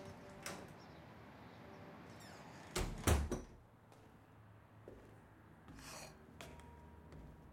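A door shutting with a heavy double thud about three seconds in, with a few faint clicks and knocks around it.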